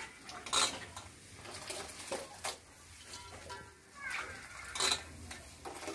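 Wet, soaked puffed rice being squeezed and scooped by hand out of water in an aluminium pot, with short splashy squelches and light knocks against the metal.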